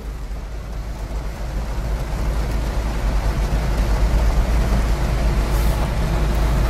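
Heavy rain pouring onto a car's roof and windshield, heard from inside the cabin over the car's low, steady rumble; the rain noise grows louder about two seconds in.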